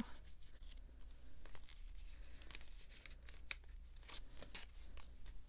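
Quiet rustling of plastic binder sleeves and photocards, with small scattered clicks and scrapes as cards are handled and slid into the pockets.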